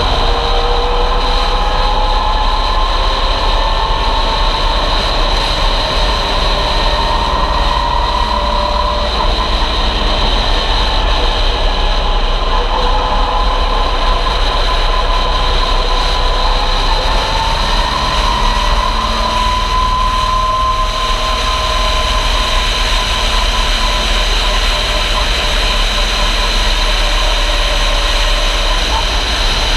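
A 400-horsepower stock car's V8 engine running hard around an oval track, its pitch rising and falling a few times as it pulls through the laps, over a steady rushing noise.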